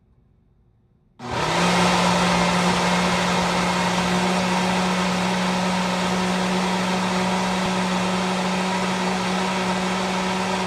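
Ninja blender motor starting about a second in and running steadily with a strong hum, grinding a thick frozen-fruit and date mix, then cutting off at the end.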